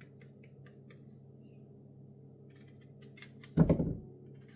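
Faint light clicks and taps over a steady low hum, then a single dull thump about three and a half seconds in.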